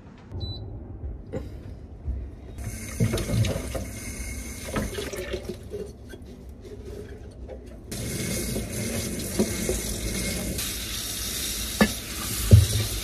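Kitchen tap running into a sink in two spells while wine glasses are washed by hand with a soapy sponge, with light clinks and knocks of glassware and a sharper knock near the end as a piece is set down.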